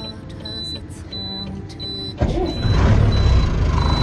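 Truck cab warning buzzer beeping steadily, about three beeps every two seconds, over a low rumble. About halfway through, a much louder low engine rumble sets in suddenly and carries on under the beeps.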